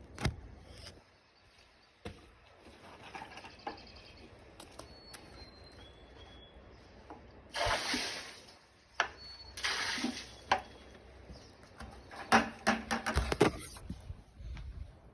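Water sprayed onto a freshly sawn wood slab in two hissing bursts of about a second each, wetting the surface to make the grain show. Several sharp knocks and clatter follow near the end, and a bird chirps faintly a few times.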